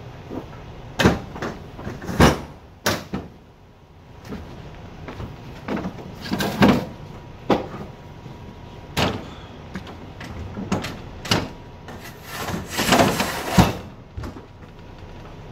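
A long panel being handled on a trailer's deck and against its side walls: irregular knocks and bangs, with a longer scraping rattle near the end.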